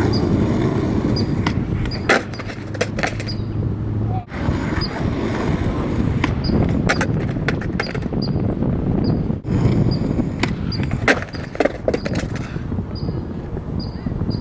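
Skateboard wheels rolling on concrete, with a series of sharp clacks and knocks of the board against the ground.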